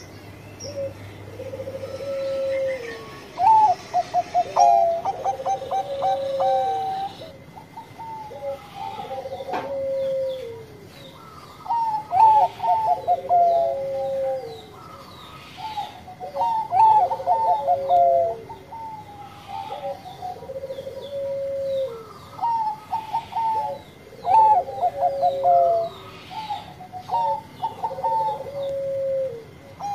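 Caged Bangkok-line zebra dove (perkutut) singing its cooing song over and over. Each phrase is a quick run of short staccato notes with longer, lower coos, repeating about every four seconds.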